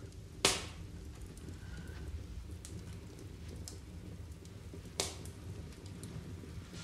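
Low steady room hum with two short sharp knocks, one near the start and one about five seconds in, and a few faint ticks between.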